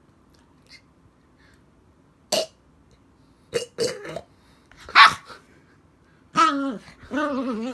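Toy poodle making a few short, sharp huffing grunts, then two drawn-out grumbling vocal sounds near the end, the first falling in pitch and the second wavering.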